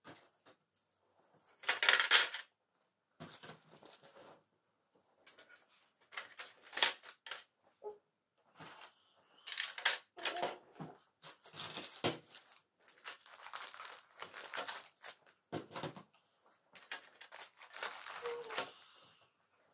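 Bangles and other jewelry clinking against each other and the metal tin as a hand arranges them, in irregular bursts of handling noise. Paper crinkles near the end as a sheet is pressed down over the jewelry.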